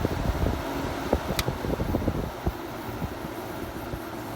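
Late-80s Kenmore 5,000 BTU window air conditioner running with its fan on high: a steady rush of air over an uneven low rumble. A single sharp click comes about a second and a half in.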